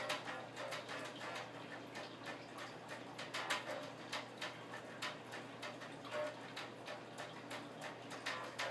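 Electric guitar picked at low volume: a run of sharp, clicky pick attacks with short notes between them.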